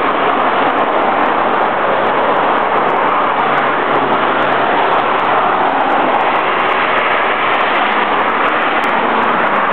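Steady rushing road and traffic noise heard while moving along a highway, even and unbroken, with a faint low hum beneath it.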